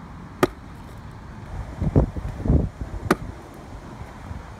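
Kick scooter landing on a concrete ramp with a sharp clack about half a second in, then two low rumbles and another sharp clack a little after three seconds, over wind on the microphone.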